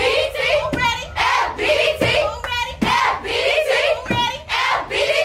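A group of young voices chanting in rhythm, with sharp claps landing roughly once a second.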